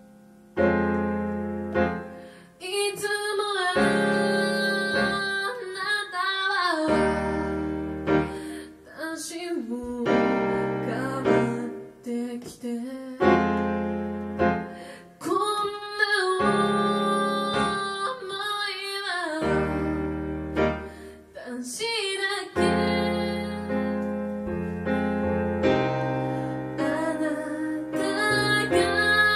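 A woman singing to her own keyboard accompaniment, the keyboard playing chords in a piano sound over low bass notes. The keyboard plays alone at first, and her voice comes in about two and a half seconds in and carries on in phrases.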